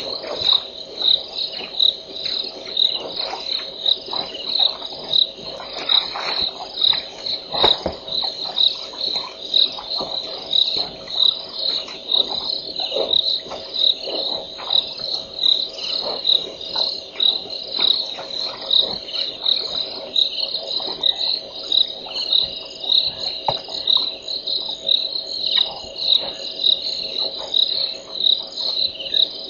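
Night chorus of crickets chirping in a steady pulse, about one and a half chirps a second, with a second insect's thin, even trill joining about halfway through. Frogs call steadily beneath.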